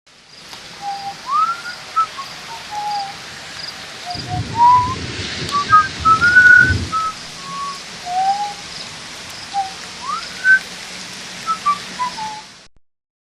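A person whistling a slow, gliding tune, the notes rising and falling one at a time, over a steady hiss. A low rumble swells through the middle, and faint high pips repeat evenly throughout.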